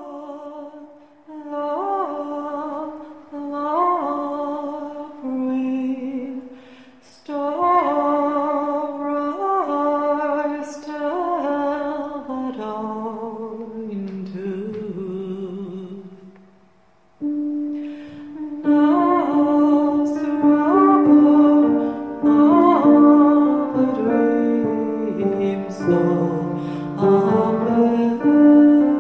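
Slow music: a woman singing a melody with vibrato over piano. The music drops away for about a second past the halfway point, then comes back suddenly.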